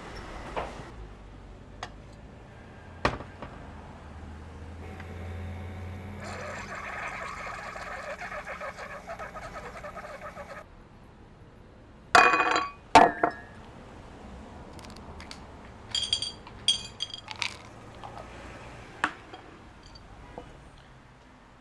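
Keurig single-cup coffee maker brewing into a mug: a steady hum with a sputtering trickle that cuts off suddenly. Then come two loud sharp clacks, the loudest sounds here, and a few ringing clinks of a ceramic mug.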